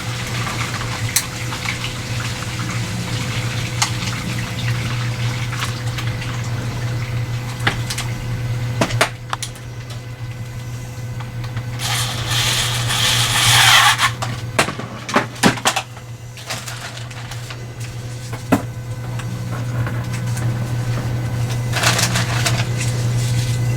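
Scattered clicks and knocks of hands working hard plastic holster parts and tools over a steady low hum. About halfway through comes a loud rasping hiss lasting about two seconds, and a shorter one near the end.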